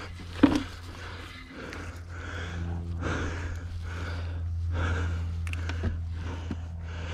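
A man panting hard in quick, repeated heavy breaths from the exertion of pushing a stuck electric dirt bike out of deep water by hand. There is a sharp knock about half a second in.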